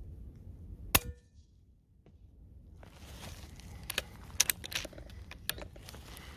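Diana air rifle firing once, a single sharp crack about a second in, followed after a short lull by a run of small sharp metallic clicks and knocks from handling the rifle.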